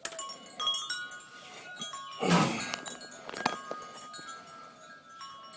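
Metal clinks and ringing from a wire mesh bird feeder and pliers being worked, with a short, harsh, noisy sound about two seconds in.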